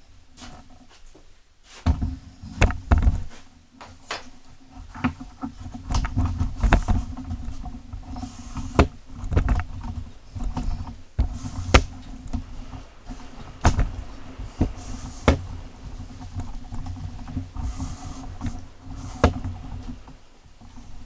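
Irregular metal knocks and clanks of a freshly sharpened lawn mower blade being handled and set back in place on a push mower, over a steady low hum.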